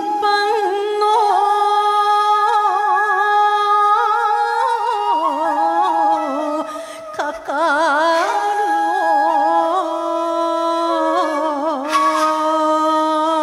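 A woman chanting a line of shigin, a Japanese recited kanshi poem, in long held notes with a wavering, ornamented pitch, with a brief pause for breath about seven seconds in.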